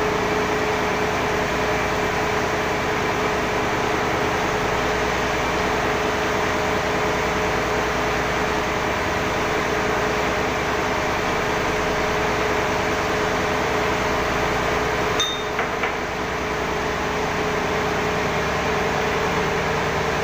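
Loud, steady drone of a ship's engine-room machinery, with steady hum tones running through it. A brief click sounds about fifteen seconds in.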